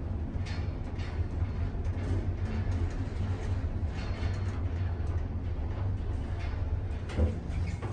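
Westinghouse elevator cab in travel: a steady low hum and rumble, with a light knock about seven seconds in.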